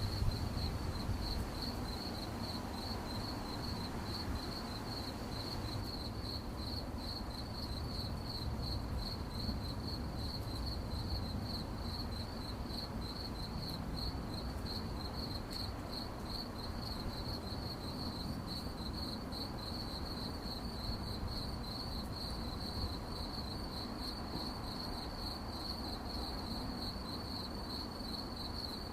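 Crickets chirping in a continuous, rapidly pulsing high trill that holds a steady pitch, over a low background rumble.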